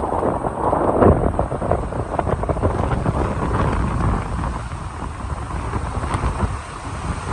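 Hurricane-force storm wind buffeting the microphone in gusts, a heavy, uneven low rumble that swells strongest about a second in.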